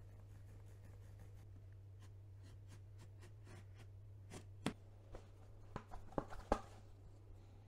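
Pencil and utility knife working a Karndean glue-down vinyl tile: faint scratchy strokes as it is marked and scored along a ruler, then sharper clicks about four and six seconds in as the cut tile is bent along the score.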